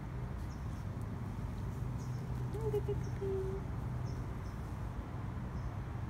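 Steady low wind rumble on the microphone, with one short, faint animal call about two and a half seconds in and tiny faint high chirps in the background.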